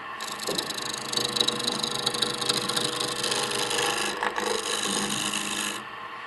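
Turning tool cutting a spinning wooden ball on a small wood lathe: a steady scraping hiss over the hum of the lathe, as the out-of-round 'ghost image' is cut away. The cut breaks off briefly about four seconds in and stops shortly before the end, leaving the lathe running.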